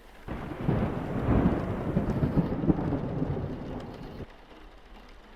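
Thunder sound effect: a sudden rumbling clap that swells, rolls on for about four seconds, then cuts off abruptly.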